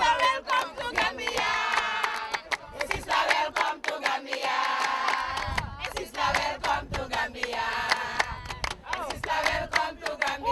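A group of voices singing and chanting together, with hands clapping.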